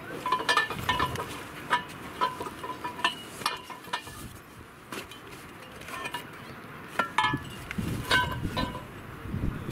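Metal poles clinking and knocking against each other as they are handled and pulled from a carry bag: a string of sharp, ringing metallic clinks, with duller knocks near the end.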